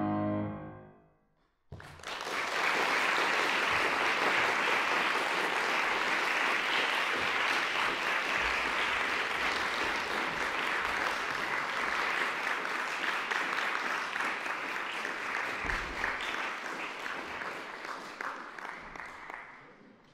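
A grand piano's final chord rings out and dies away, and after a second of silence an audience breaks into applause. The clapping holds steady, then thins out and fades near the end.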